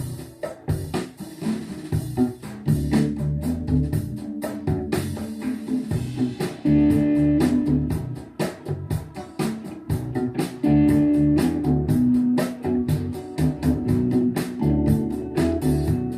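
Recorded rock music played back through vintage 1970s hi-fi loudspeakers: an instrumental passage of guitar, bass and drums with a steady beat and no singing.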